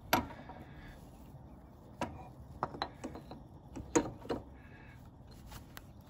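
Scattered light metallic clicks and taps as a Honda CT70's magnetized Hitachi flywheel is worked onto the crankshaft over the stator. The sharpest click comes right at the start and another about four seconds in.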